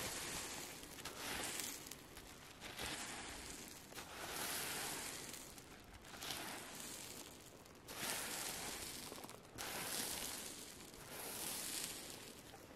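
Loose gravel-sized rock fragments rustling and clattering softly as a bare hand rakes and sweeps through them, in repeated strokes about every two seconds.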